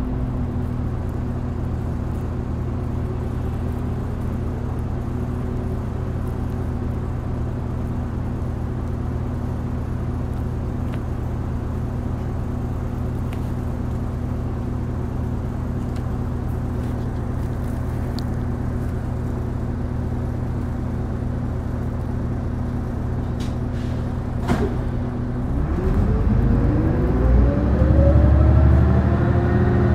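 Mitsubishi Fuso Aero Star city bus (LKG-MP37FKF) diesel engine idling steadily while the bus stands. A brief sharp sound comes about 24 seconds in, and then the engine note rises as the bus pulls away and accelerates.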